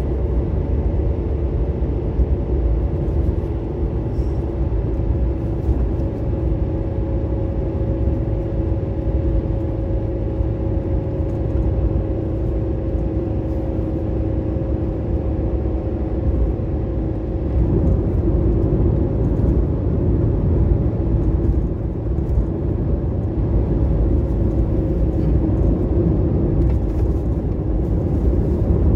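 A vehicle driving: a steady low rumble with a faint steady hum.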